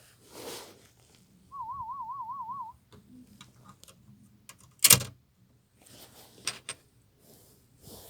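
Audiometer warble tone near 1 kHz, wavering quickly up and down in pitch, played once for about a second as a test signal in a child's hearing test. A few seconds later comes a single sharp knock, the loudest sound, among light clicks and handling noises.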